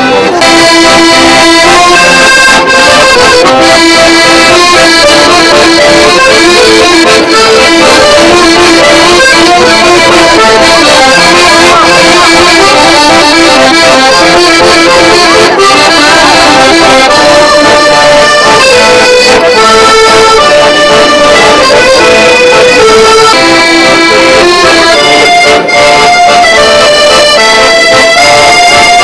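A street accordion playing a continuous tune of held melody notes over chords, without a pause.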